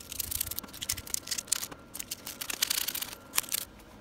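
A wet rag being wrapped around a small steel shifter yoke by hand: irregular rustling and crackling with small clicks of the metal part, dying away shortly before the end.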